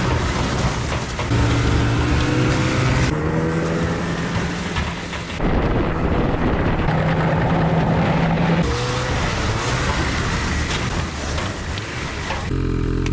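A vehicle engine running at a steady speed, heard in several short stretches cut together, its pitch jumping abruptly between them, with a brief rise and fall in pitch about nine seconds in.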